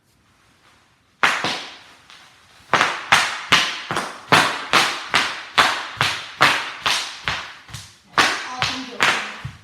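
Bubble wrap being popped: a single loud pop about a second in, then a steady run of sharp pops, about two to three a second.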